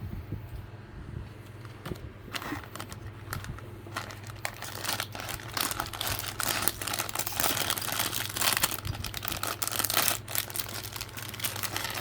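Plastic packaging crinkling and rustling as a blind box's wrapping is torn open: a few light clicks at first, then dense crackling from a couple of seconds in that grows louder. A steady low hum runs underneath.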